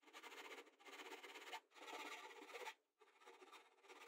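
Faint rasping strokes of a thin metal blade drawn back and forth by hand across the edge of an MDF disc, four strokes under a second each, the last one weaker.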